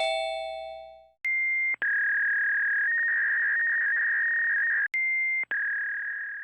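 Electronic time-signal chime of a municipal disaster-prevention PA system. A bell-like note dies away, then high, steady, sine-like tones follow: a short one, a long one that trills between two pitches, another short one, and a last long one fading out.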